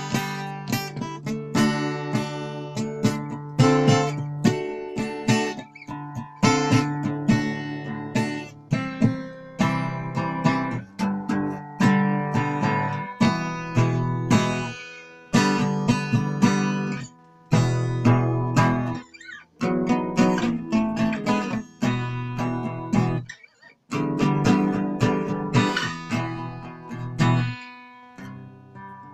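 Acoustic guitar played solo, strummed chords mixed with picked melody notes, with a few brief pauses.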